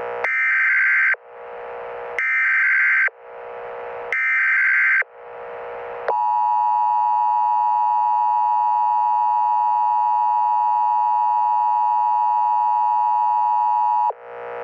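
Emergency Alert System header: three bursts of screechy digital data tones, each about a second long with a short echoing tail, then the steady EAS attention tone held for about eight seconds before it cuts off.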